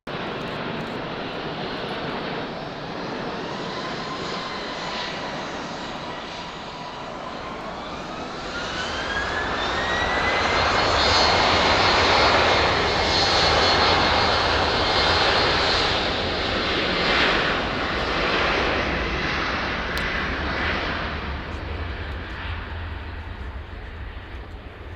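Jet airliner's engines spooling up, with a rising fan whine that settles into a steady high tone. The jet noise swells to its loudest about halfway through and then slowly fades, as at the start of a takeoff run.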